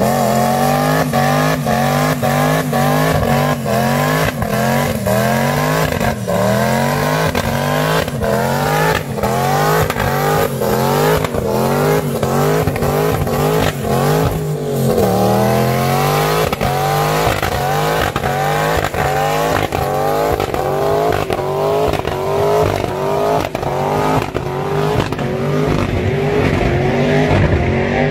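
Twin-turbocharged Corvette Grand Sport V8 held at high revs through a burnout, its pitch bouncing up and down over and over, with many sharp pops and the rear tyres spinning. About halfway the revs dip and climb again.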